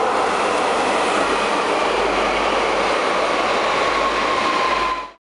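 Passenger train passing close by: a loud, steady rush of wheel and rail noise with a thin high whine that drops slightly in pitch. It cuts off suddenly near the end.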